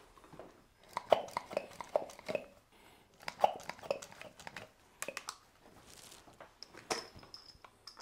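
Hand pump gun for cupping therapy being worked on plastic suction cups, drawing air out to set them on the skin: runs of quick clicking pump strokes, a burst about a second in and another about three and a half seconds in, with a few single clicks later.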